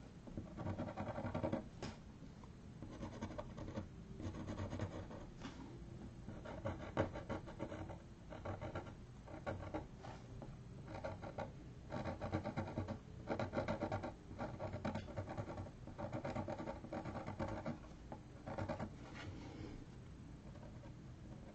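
Felt-tip permanent marker scratching across paper in quick, repeated hatching strokes, coming in clusters of about a second with short pauses between.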